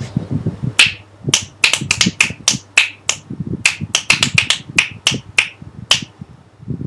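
A rapid, irregular run of about eighteen sharp clicks, with softer low thumps between them.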